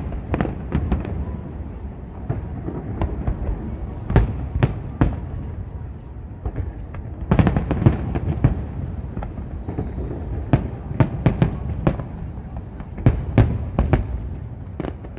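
Aerial firework shells bursting: irregular sharp bangs over a steady low rumble, with quick clusters of reports about halfway through and again near the end.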